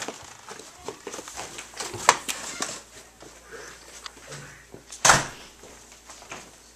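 Footsteps and bumps of people going down a staircase, with scattered sharp knocks and rustling; the loudest thump comes about five seconds in.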